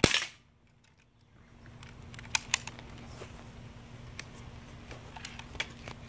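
A BB gun firing once at the start: a single sharp crack with a brief tail, followed by about a second of near silence. After that come scattered sharp clicks, two close together a couple of seconds in and a few more later.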